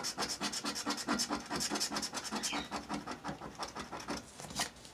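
A scratch-off lottery ticket being scratched: quick, rhythmic scraping strokes, several a second, stopping shortly before the end.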